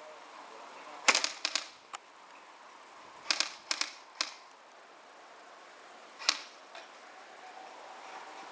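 Airsoft guns firing in short bursts of sharp snapping shots: a quick run of about five a second in, another run of about five a little later, then two single shots.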